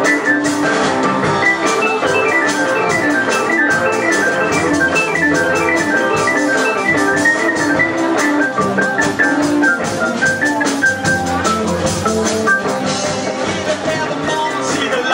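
Live band instrumental with an organ-toned electric keyboard playing quick runs of notes over drums and upright bass.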